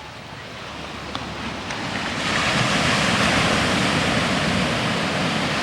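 Ocean surf breaking on the shore, a wash of noise that swells louder about two seconds in and stays up.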